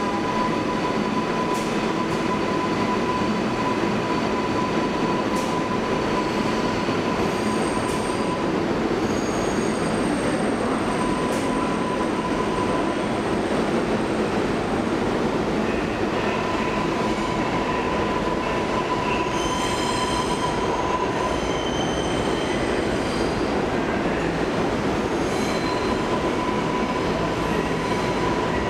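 New York City subway train running on the tracks with a steady rumble, its wheels squealing in high tones that come and go, with a cluster of shrill squeals about two-thirds of the way through.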